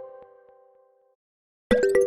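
The last notes of one iOS 17 iPhone ringtone ringing out and fading away by about a second in, a moment of silence, then the next ringtone starting abruptly near the end with a quick run of bright plucked notes.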